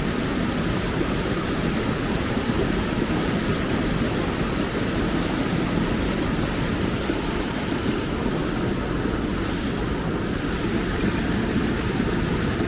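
Mountain stream water rushing over rocks: a steady, even noise of flowing water.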